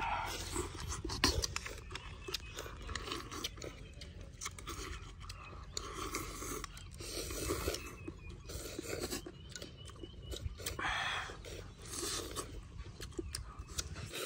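Close-up eating sounds: repeated slurps of noodles and soup, chewing of chicken, and light clicks of chopsticks and spoon on bowls, over a steady low rumble.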